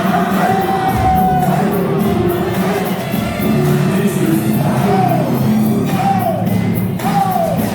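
Loud music with singing and a steady beat, with repeated falling sung or synth notes.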